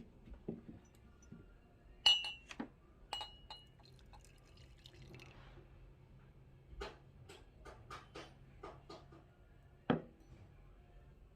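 Glassware or ceramic cups being handled on a counter: two sharp clinks that ring briefly, about two and three seconds in, then a run of light clicks and taps and one duller knock near the end.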